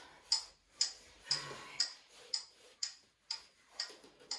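Steady, regular ticking, about two ticks a second, from an interval timer counting down the rest between exercises.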